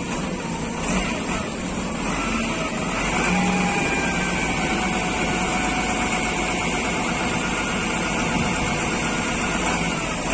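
Wheeled mobile crane's diesel engine running steadily, getting a little louder about three seconds in and holding there.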